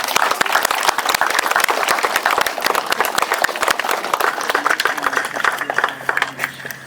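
Crowd applauding, a dense patter of many hands clapping that thins out and fades near the end.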